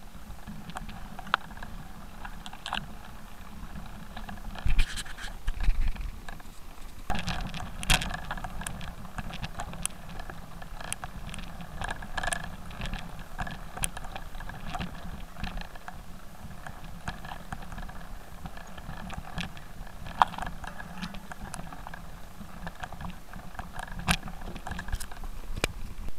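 Mountain bike riding over a rough, stony dirt singletrack, heard from an on-board camera: a steady rattling of the bike with many sharp clicks and knocks from stones and bumps, and a few heavy knocks about five seconds in.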